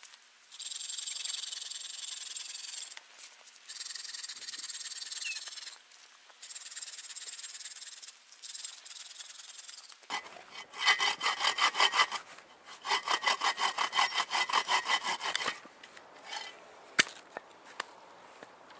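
Sven Saw folding bow saw cutting through a branch: a few runs of lighter strokes, then two long runs of fast, loud strokes, about four or five a second, in the second half. A single sharp knock near the end.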